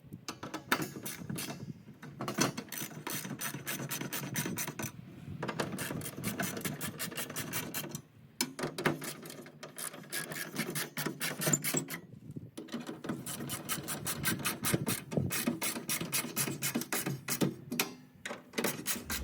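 Small 1/4-inch-drive hand ratchet with a hex-bit socket clicking in rapid runs as panel bolts are tightened a little at a time, in about four runs with brief pauses between them.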